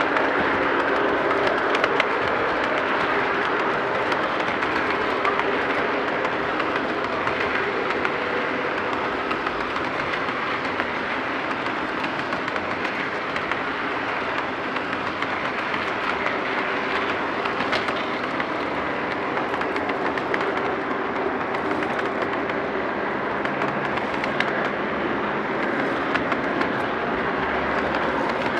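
O gauge model auto rack freight cars rolling past on three-rail track: a steady rolling rumble of metal wheels on the rails, with scattered faint clicks.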